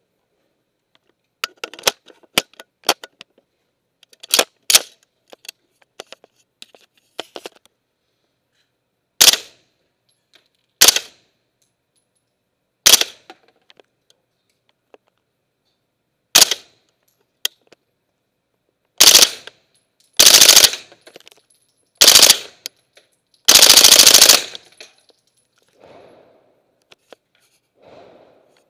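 Suppressed 9mm M16-pattern carbine with an SWR Trident-9 suppressor firing. A few quick shots and then single shots spaced one to a few seconds apart, followed by short fully automatic bursts; the last and longest lasts about a second.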